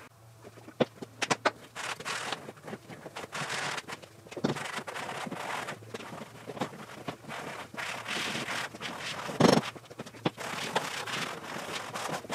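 Gloved hands wiping a cloth over a plastic door panel in repeated rubbing strokes, with scattered clicks and one louder knock about nine and a half seconds in.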